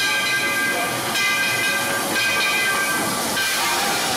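Narrow-gauge steam locomotive hissing steam as it rolls into a station, with three high ringing tones of about a second each sounding over the hiss.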